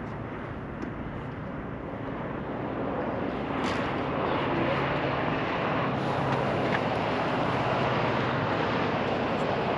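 Steady engine-like rumble of a motor vehicle, growing louder about three and a half seconds in and then holding steady.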